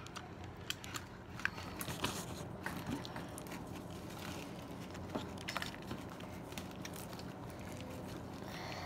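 Homemade glue-and-borax slime being squished and kneaded by hand: irregular small sticky clicks and crackles, thickest in the first few seconds, then sparser.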